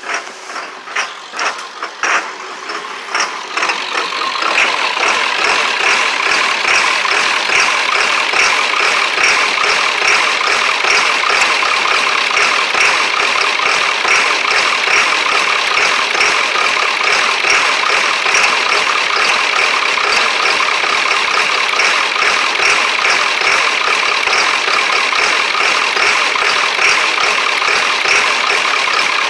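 A 1999 Ford 7.3 Power Stroke V8 turbo-diesel, fitted with a 1994.5 high-pressure oil pump, running. It pulses unevenly for the first few seconds and then settles into a steady run about four seconds in. The owner thinks not all the injectors are firing, which he puts down to air in the lines or old summer diesel in the cold.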